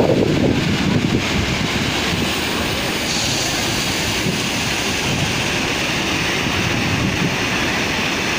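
Muddy floodwater pouring over a long concrete weir into churning foam below: a steady, continuous rush of falling water.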